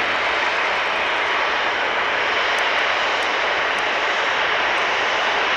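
Mitsubishi F-2 fighter's single General Electric F110 turbofan at takeoff power as the jet lifts off and climbs away: a loud, steady jet roar.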